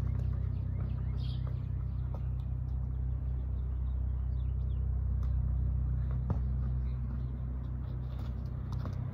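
Outdoor ambience: a steady low rumble with faint bird chirps, and a single thud about six seconds in.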